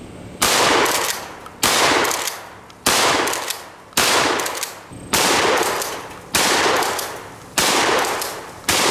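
12-gauge pump-action shotgun firing double-aught buckshot: eight blasts, about one every second and a quarter, each with a long fading echo.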